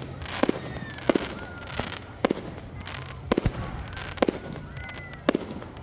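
Aerial firework display: shells burst overhead in an irregular string of about ten sharp booms, each followed by a short echo.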